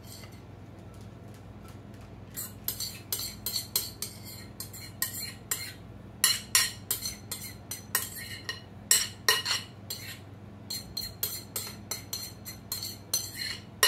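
A spoon stirring and scraping through shredded carrot and raisin salad in a ceramic bowl. Irregular clinks and scrapes begin about two seconds in, over a steady low hum.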